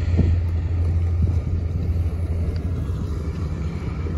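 Motorboat engine running with a steady low rumble as the boat passes close by.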